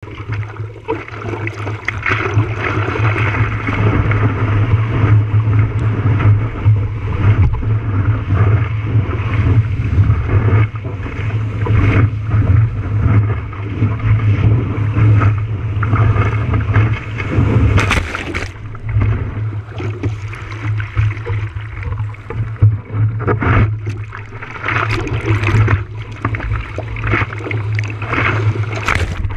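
Seawater rushing and splashing around a camera mounted on the nose of a surfboard as it is paddled and ridden through the surf, over a steady low rumble. There is a loud splash about eighteen seconds in.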